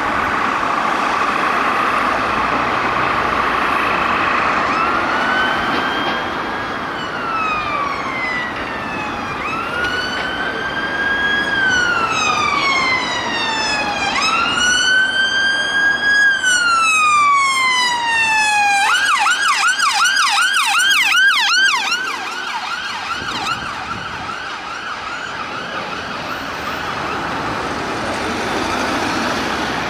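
Ambulance response car's siren on a slow wail: three long sweeps, each rising quickly, holding, then falling away slowly. It then switches to a fast yelp of about three to four warbles a second, loud at first and fading as the car passes. Traffic noise runs underneath.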